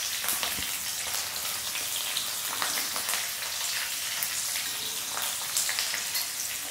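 Carrot and capsicum sizzling steadily in hot oil in an aluminium kadhai, with a fine, even crackle.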